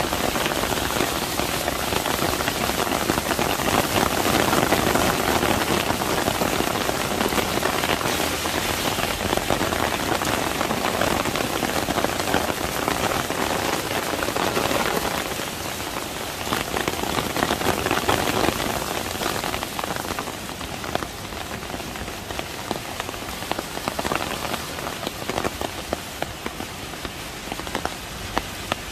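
Heavy rain pouring onto a paved street and wet road, a dense steady hiss of drops splashing on the surface; it eases a little about two-thirds of the way through.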